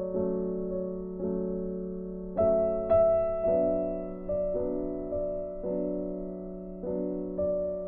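Soft background piano music: slow chords struck about once a second, each ringing and fading.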